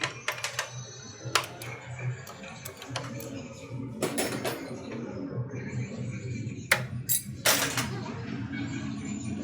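Sharp metallic clinks and knocks of tools and small metal parts being handled, irregularly spaced and loudest a few times around the middle and later part, over background music.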